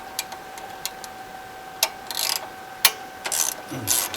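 Socket ratchet wrench clicking in irregular strokes with short metal scrapes as a nut is worked loose on a petrol generator.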